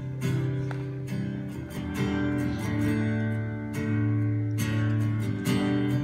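Acoustic guitar strummed in slow chords, changing chord every second or two.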